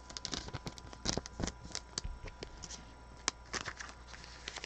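Football trading cards being handled and slid against one another as a freshly opened pack is gone through: a run of soft, irregular clicks and rustles.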